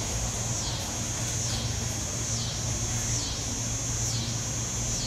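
Insects calling: a steady high buzz that swoops down and back up about once a second. Under it runs a low steady hum.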